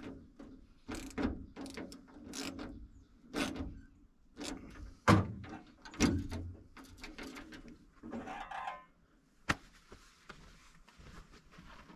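Irregular metallic clicks and knocks from a cam lock and door latch being handled and fitted on a service truck's metal toolbox door, the loudest about five seconds in, with a brief rattle shortly before the last sharp click.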